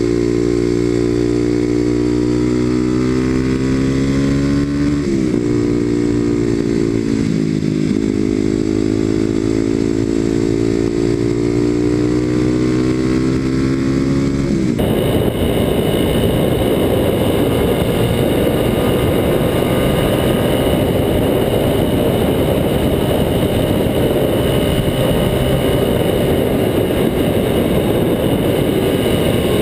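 Kawasaki KLX250SF's single-cylinder four-stroke engine running through a Muzzy exhaust while riding, at steady revs that dip and climb again about five seconds in. About halfway through the sound switches abruptly to a heavy rush of wind and road noise on the microphone, with the engine still running underneath.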